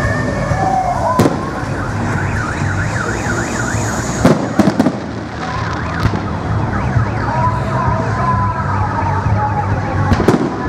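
Fireworks display: sharp bangs of bursting shells every few seconds, with a quick cluster about four and a half seconds in, over a mix of rising, falling and fast-warbling whistles.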